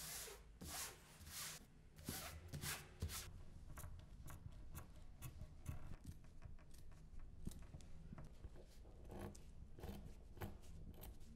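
Scissors cutting through cloth in a quick run of short, crisp snips, after a few soft swishes of hands smoothing paper over the fabric.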